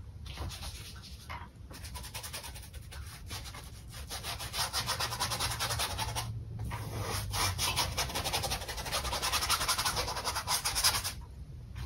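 Paintbrush scrubbing acrylic paint onto a canvas in rapid, repeated strokes, with short pauses about a second and a half in and around six seconds, and stopping near the end.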